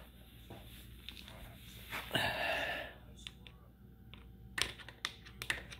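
Slack drive chain of a Kawasaki Ninja ZX-10R being worked up and down with a flat tool, slapping in a quick run of sharp clacks near the end. The chain is too loose and needs tightening. A brief rustle about two seconds in.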